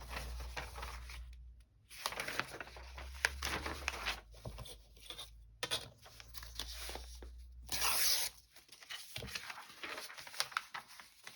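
Sheets of paper being handled and torn, an irregular rustling with a louder burst about eight seconds in.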